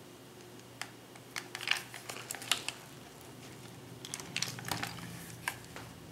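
Irregular light clicks and taps of a shot-up plastic toy robot being handled and turned over, coming in two bunches.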